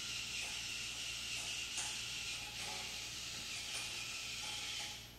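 Servomotors of a small Arduino-controlled wheeled robot running as it drives, a steady high whir that stops near the end.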